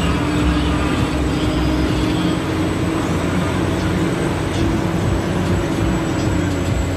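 Cummins N14 diesel engine of a Kenworth W900L truck running steadily as the truck drives, heard inside the cab as a continuous drone.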